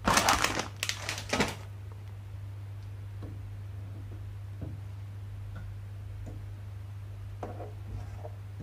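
Plastic instant-noodle packet crinkling for about a second and a half. Then faint clicks and light knocks as a bowl goes into a microwave and its mechanical timer dial is turned, over a steady low hum.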